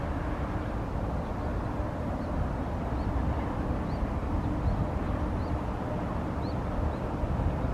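Bull-headed shrike giving a string of faint, short high chirps, about eight spread over several seconds, over a steady low rumble that is the loudest thing heard.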